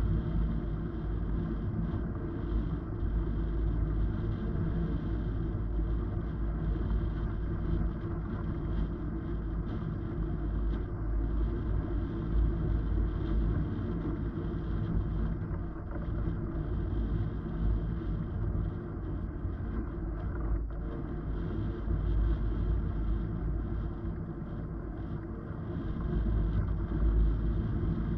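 Wind noise on a camera microphone carried in paraglider flight: a steady, deep rush of air that swells and dips in strength.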